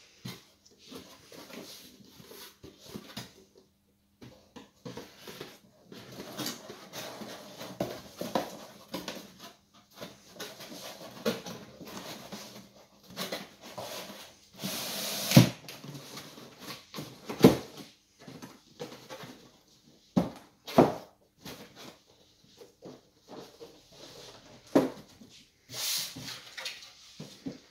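Corrugated cardboard being handled and slid together: rustling, rubbing and scraping of cardboard panels, with a longer scraping rush about halfway through as a sleeve slides down over the core, and several sharp cardboard knocks after it.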